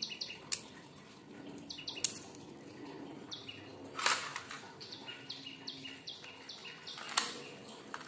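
Four sharp metallic clicks, the loudest about four seconds in, as cartridges are pressed into a pistol magazine and the pistol is handled. Behind them, small birds chirp in short, rapid runs of high notes.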